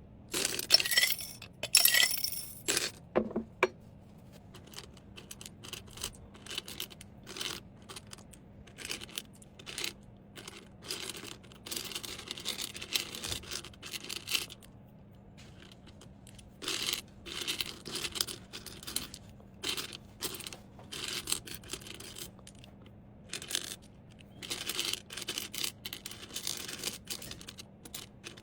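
Small hard items clinking together a few times at the start, then irregular rustling and crinkling of packaging as items are handled and packed.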